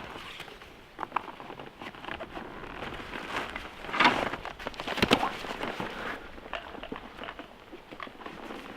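Nylon backpack and its straps being handled, with a continuous fabric rustle and a few sharper scrapes and clicks, the loudest about four and five seconds in.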